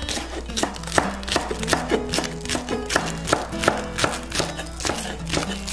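Kitchen knife chopping green onion (scallion) on a wooden cutting board: a quick, even run of sharp strokes, several a second, over background music.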